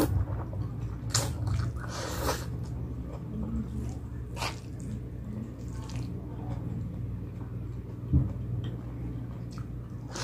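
Close-miked eating of palabok noodles: wet chewing and slurping in a few short bursts, with a soft knock about eight seconds in over a steady low hum.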